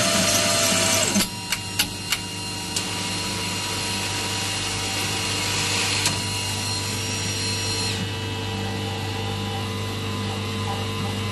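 Coffee vending machine at work making a latte. A motor whirs loudly and stops about a second in, a few sharp clicks follow, and then the machine settles into a steadier, quieter hum.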